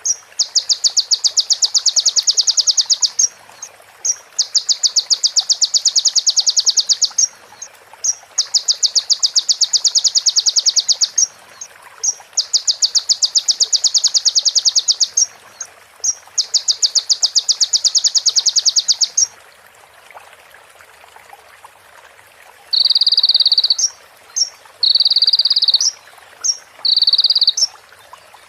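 A konin (sunbird) singing a repeated rapid rattling trill in imitation of a female prinia's call: five trills of about three seconds each with short gaps. After a pause, four shorter, lower trills of about a second each follow near the end.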